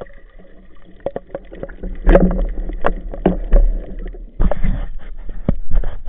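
Underwater handling noise picked up by a camera on a speargun: irregular knocks and clicks from the gun, shaft and line over a low water rumble, with a speared sea bass on the shaft. Sparse at first, the knocks grow louder and denser about two seconds in, with a short rush of water noise past the middle.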